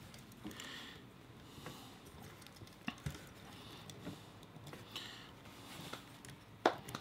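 Plastic model kit parts being handled and fitted together: light rustling with scattered small plastic clicks, and one sharper click near the end.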